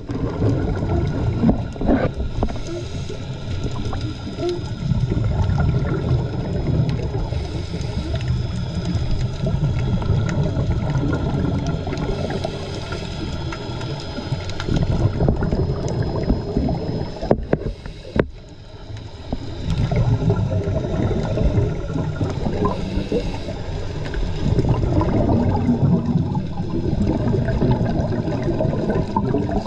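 Muffled underwater noise through a camera housing: a scuba diver's regulator exhaust bubbling in long stretches, with a short lull about eighteen seconds in.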